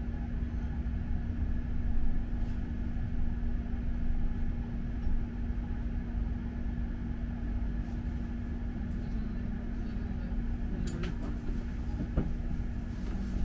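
Inside a moving London bus: steady engine and road rumble with a constant hum, and a few sharp clicks or rattles near the end.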